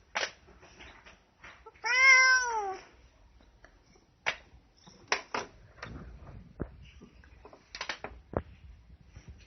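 A domestic cat meows once, about two seconds in, a single call that rises and then falls in pitch. A few light clicks or knocks follow later on.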